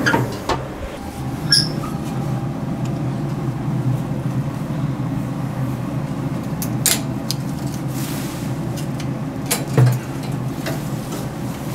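Steady whirring rumble of a pellet grill's fan running, with a few sharp metal clinks and knocks from tongs and the grill grate; the loudest knock comes near the end.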